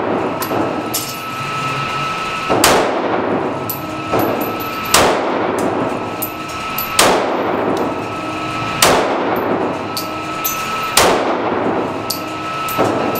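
Glock .40 pistol fired in slow aimed shots, five sharp reports about two seconds apart, each echoing off the walls of an indoor range.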